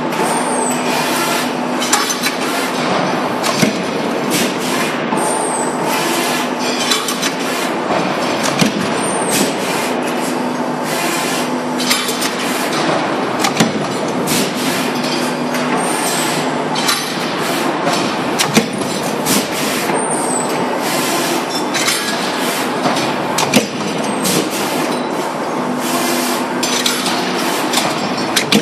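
A line of C-frame mechanical punch presses stamping sheet steel, with servo-driven gantry feeder arms moving the parts between them: a steady machinery din full of sharp metal clanks and knocks, with a low hum that comes and goes every few seconds.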